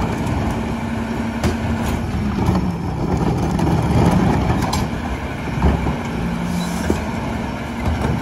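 McNeilus rear-loader garbage truck running while its cart tipper dumps a blue recycling cart into the hopper, with a steady engine and hydraulic rumble. A few clanks from the cart and the falling recyclables come through.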